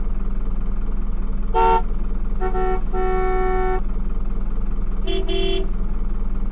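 Toy car horn tooting three times: a short toot, a longer two-part toot just after it, and another short toot near the end, over a steady low hum.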